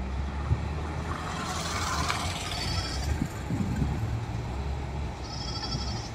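Wheel loader's diesel engine running with a steady low rumble, and a rush of coke pouring from its bucket into a dump truck about one and a half seconds in. Two short, high warbling sounds come near the middle and near the end.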